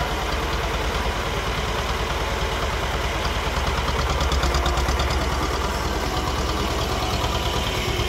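Tractor diesel engine running steadily at low revs, growing slightly louder about four seconds in.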